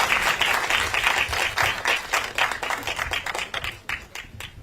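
Audience applauding, many hands clapping, thinning out to a few single claps and fading away near the end.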